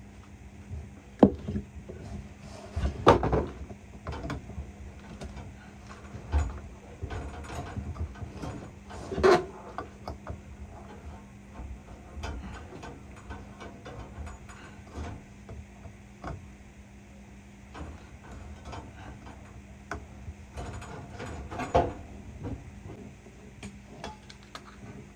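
Irregular knocks, clicks and rattles of hands and tools working on the copper refrigerant lines in a furnace cabinet, with sharper knocks about a second, three seconds, nine seconds and twenty-two seconds in. A faint steady low hum runs underneath.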